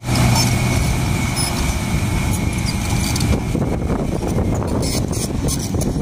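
Isuzu light dump truck's diesel engine running steadily as its hydraulic hoist raises the tipper bed to dump a load of soil.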